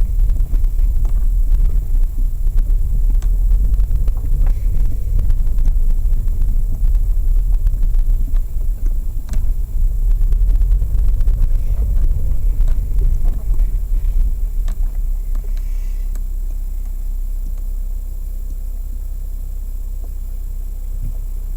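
Lada Vesta SW on the move, heard from inside the cabin: a steady low rumble of road and tyre noise, with a few sharp knocks. The rumble turns smoother and more even after about fourteen seconds.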